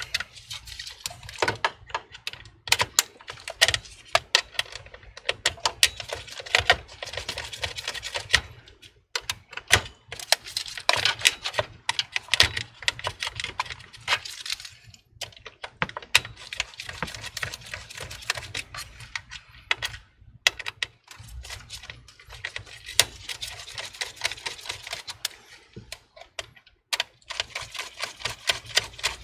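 Quick, irregular clicking and rattling with a few brief pauses: hands and a screwdriver working the AIO water cooler's pump head as it is screwed down onto the CPU.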